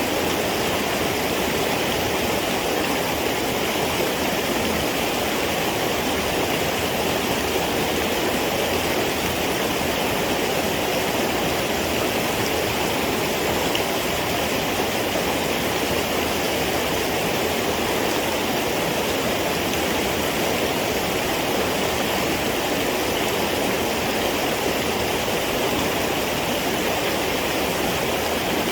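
Steady rush of flowing water, an unbroken even noise like a stream running over rocks.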